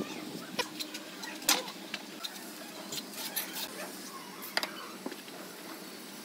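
Small steel trowel scraping and tapping on cement render as a column moulding is shaped, heard as scattered short clicks and scrapes over a faint steady hum.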